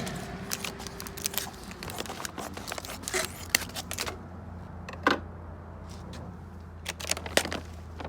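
Irregular clicks, knocks and short scraping or rustling sounds, as of objects being handled, over a steady low hum.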